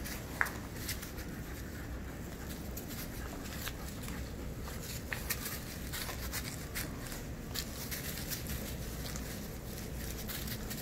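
Rottweiler puppies' paws scuffling and rustling through loose wood-shavings bedding, a scatter of small irregular crackles, with one sharper short sound about half a second in.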